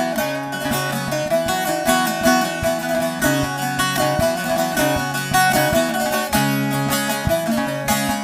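Bağlama (long-necked Turkish saz) played with fast, even strumming of a folk melody, with no voice.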